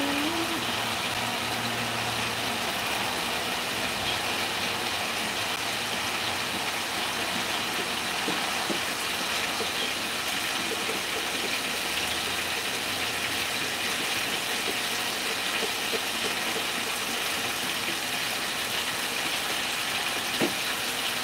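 Food frying in a pan over a gas flame: a steady sizzling hiss with a few faint crackles.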